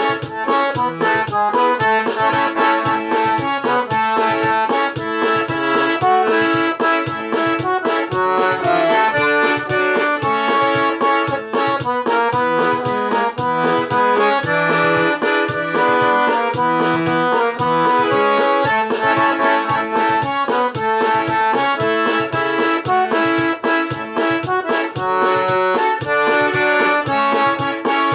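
Accordion (sanfona) playing an instrumental tune: a quick melody of many short notes over a regularly pulsing bass.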